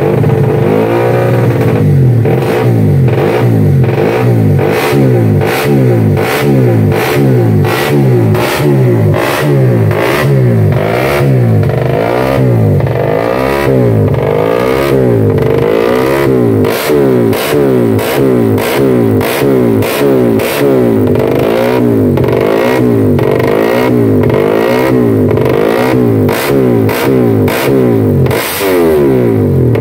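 Race-prepared Honda GTR150 single-cylinder engine revved over and over in quick throttle blips through its racing exhaust, the pitch rising and falling with each blip.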